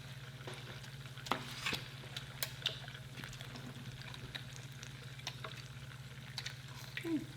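Scattered light clicks and crackles of burgers being put together by hand, toppings and buns handled, over a steady low hum.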